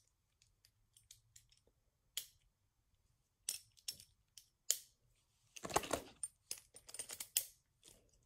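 Hard plastic clicking and clacking of Beyblade Burst tops and parts, in scattered single clicks with a louder run of rapid clattering about six seconds in.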